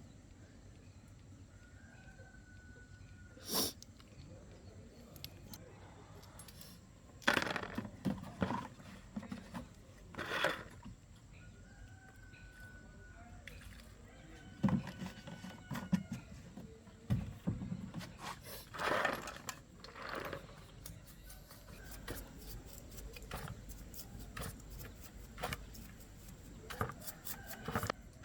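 Scattered knocks and clinks at irregular intervals, busier near the end, with a few short chirps in between.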